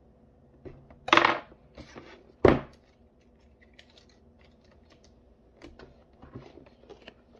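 Paper and a paperback book handled on a tabletop: a short, sharp rasp of paper about a second in, a knock against the table about a second later, then faint rustles and small taps as a printed label is peeled and pressed on.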